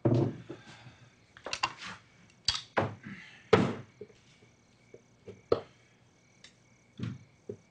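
Metal parts of an old printing press being worked by hand: irregular clanks and knocks, about a dozen in all, the loudest about three and a half seconds in. The press is balky and will not print.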